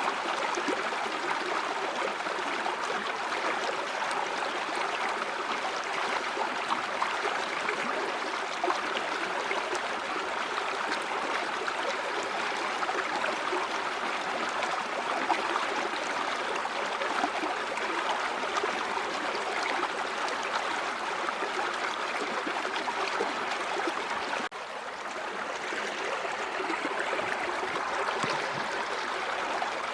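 River water flowing, a steady rush of running water that briefly drops in level about three-quarters of the way through before building back up.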